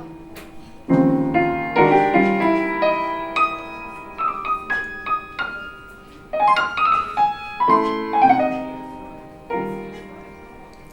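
Solo jazz piano playing slow chords with a few single notes between them, each chord left to ring and fade.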